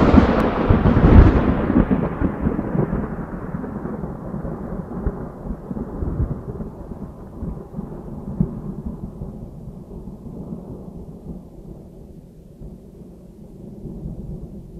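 Thunder: a loud clap in the first couple of seconds rolling into a long low rumble that slowly dies away, swelling slightly again near the end.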